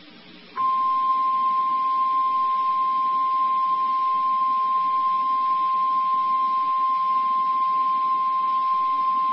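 NOAA Weather Radio 1050 Hz warning alarm tone: one steady, unbroken high tone that switches on about half a second in. It is the alert signal announcing a National Weather Service warning broadcast, here a severe thunderstorm warning.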